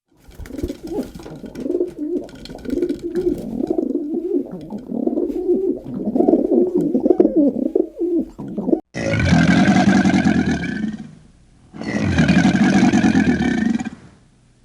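Pigeons cooing in low, wavering phrases for about nine seconds, then, after a sudden cut, two loud, long animal calls of about two seconds each.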